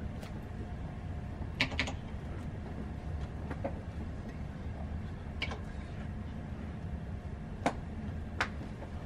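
Hall room tone: a steady low hum with a faint steady high note, broken by about six short sharp knocks and clicks, a quick pair about one and a half seconds in and another pair near the end.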